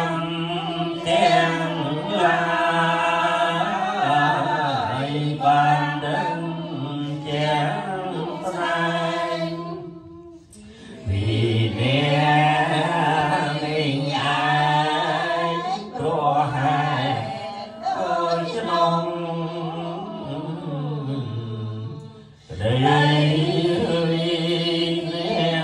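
Khmer Buddhist chanting led over a microphone, recited in long phrases on a steady reciting pitch, with short breath pauses about ten seconds in and again near the end.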